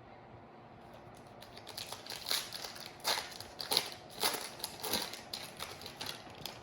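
Foil trading-card pack wrapper crinkling and crumpling in the hands, a dense run of crackles starting about a second and a half in, loudest in the middle.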